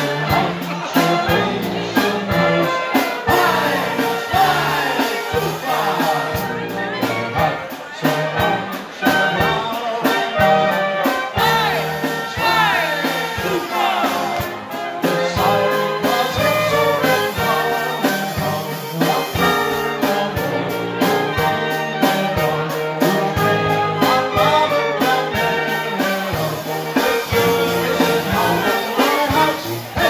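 A German-style brass band (Blaskapelle) playing a tune: tuba bass line, trumpets and clarinet over a drum kit keeping a steady beat.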